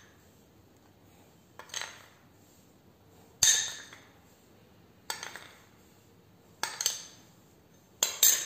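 A spoon clinking against a mixing bowl as potato wedges are coated with cornflour. About six separate sharp clinks with a short ring come roughly a second and a half apart, with two in quick succession near the end.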